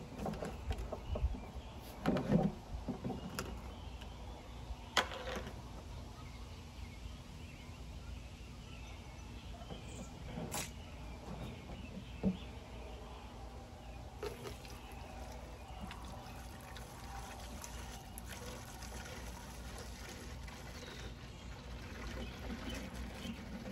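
Plastic containers handled, with a few sharp knocks and clicks in the first five seconds, then liquid cleaning concentrate poured from a plastic gallon jug into a plastic measuring cup near the end.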